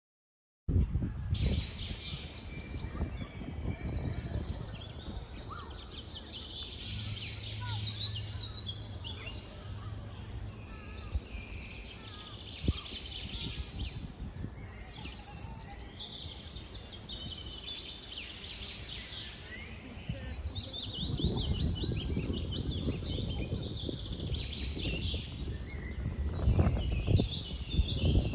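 Chorus of several songbirds singing and chirping, with many quick overlapping phrases and trills. A low rumble runs underneath, stronger in the last several seconds.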